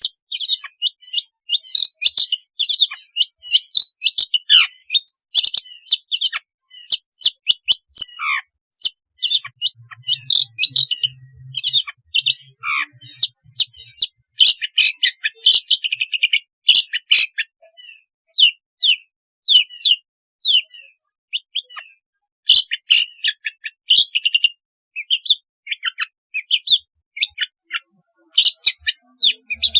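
Long-tailed shrike (cendet) singing: a fast, rambling run of short high chirps, trills and harsh notes, broken by brief pauses.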